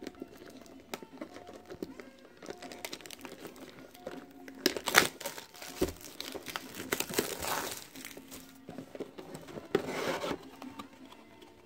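Plastic shrink wrap being torn and peeled off a cardboard booster box, crinkling in several irregular bursts, loudest about five seconds in.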